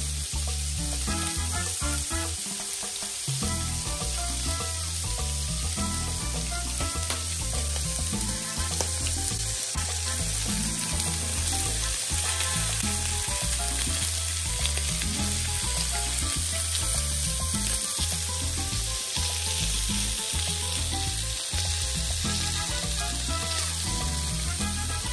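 Salmon steaks frying in oil in a nonstick pan, a steady sizzle throughout, with soft background music underneath.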